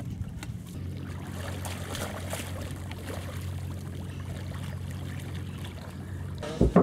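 A boat's engine runs with a steady low hum, with water lapping and splashing over it. Two loud thumps come near the end.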